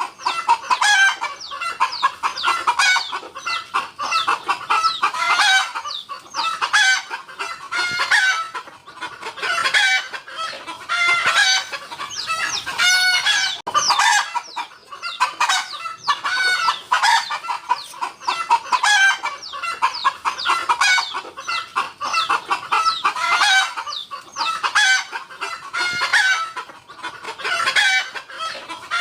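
Chickens clucking continuously, many short calls overlapping, with a rooster crowing among them.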